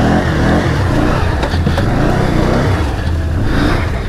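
ATV engine revving up and down as it pulls through deep mud ruts, its pitch rising and falling repeatedly.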